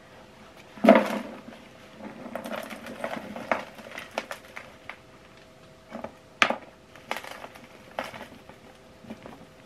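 A reusable cloth dust bag being pulled out of a Kärcher WD3 vacuum's plastic drum: a loud knock about a second in, then rustling of fabric and falling dust and debris, and a few sharp knocks and taps against the plastic.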